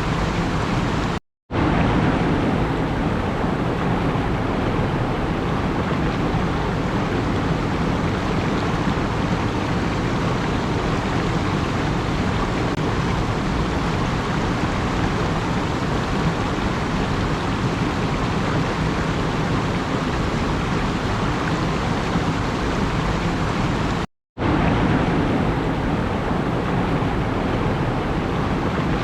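Steady, even rushing noise with no changes in pitch or rhythm, like surf or running water. It cuts out to silence for a split second twice, once about a second in and again near the end.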